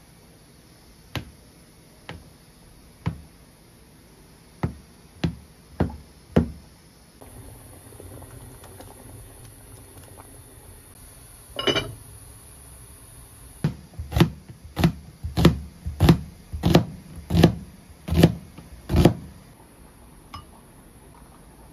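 Knife cutting a block of tofu on a plastic cutting board, with seven sharp taps of the blade on the board over the first six or so seconds. Next comes a pot of water on the boil, with a splash about twelve seconds in as the tofu goes in. Then a quick run of about ten knocks from a wooden spoon as red pepper paste is spooned out.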